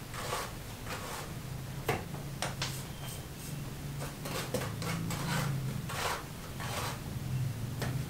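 Irregular scraping and knocking of manual building work, about ten short strokes spread through the seconds, over a low steady hum.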